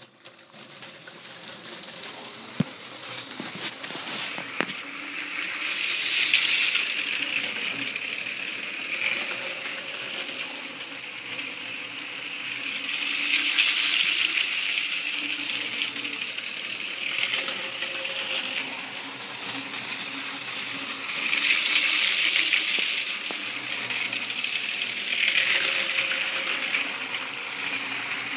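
Lego 7939 cargo train running on plastic track: the whirring and rattling of its train motor and wheels swells each time it passes close by, several times over. A few sharp clicks come in the first few seconds.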